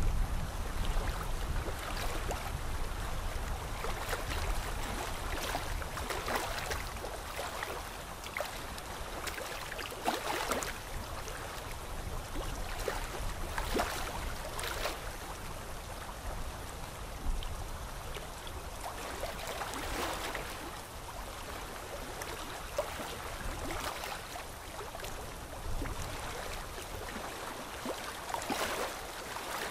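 Pen drawing on paper: a steady scratchy hiss of strokes, swelling irregularly every second or two as each line is drawn.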